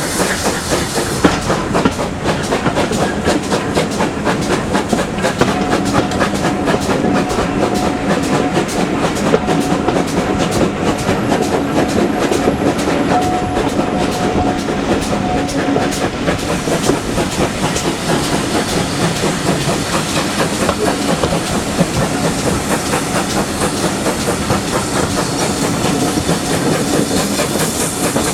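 Train running along the track, its wheels clattering rapidly over the rails, with a faint steady tone through the middle of the passage.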